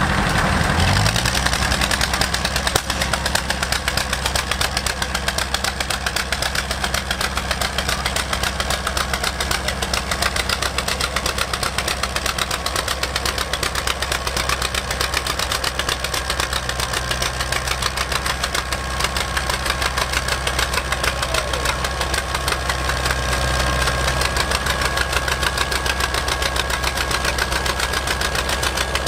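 Two vintage tractor engines, one a green John Deere two-cylinder, running under load as the tractors pull against each other on a rope. There is a steady, rapid, regular exhaust beat, a little louder near the end.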